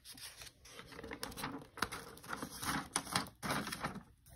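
Paper rustling with a run of light clicks and taps as a page of a spiral-bound notebook is turned over.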